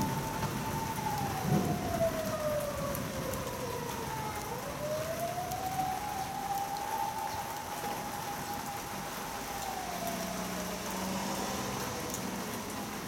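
Rain pattering steadily on the surface of a garden pond, with a distant siren wailing behind it, sliding slowly down in pitch, back up, holding, then down again. A brief low thump about a second and a half in.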